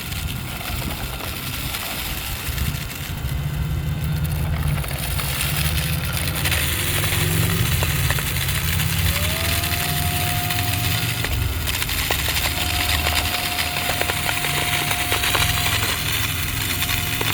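Haimeec cordless stick vacuum running while it sucks up sand, a steady whoosh with many fine ticks of grains rattling through it. Its motor whine steps up in pitch about nine seconds in and then holds.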